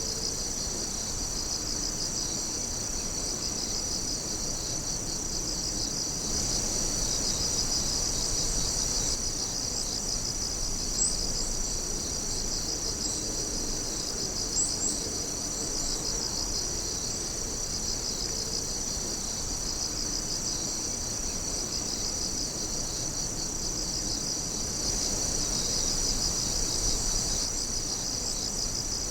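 A dense chorus of night insects trilling: a steady, high-pitched, fast-pulsing chirring, with a couple of brief sharper chirps standing out in the middle.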